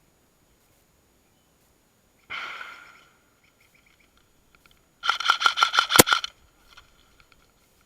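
An airsoft gun firing a rapid burst of about a dozen shots, about ten a second, with one much louder crack near the end. About two seconds earlier there is a shorter burst that fades out, and faint clicks come in between.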